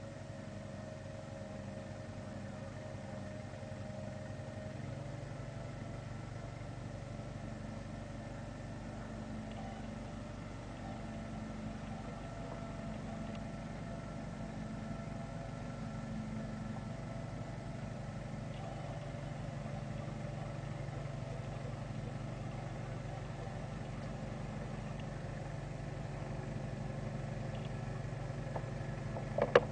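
Wheel Horse C-145 garden tractor's single-cylinder Kohler engine running steadily while driving a two-stage snow thrower through deep snow, growing a little louder as it comes closer. A sharp click near the end.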